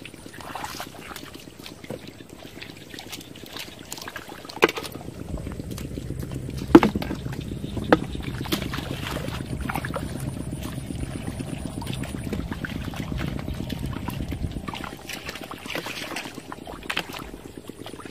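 Feet and hands sloshing and splashing in shallow muddy water, with a few sharper splashes about five, seven and eight seconds in.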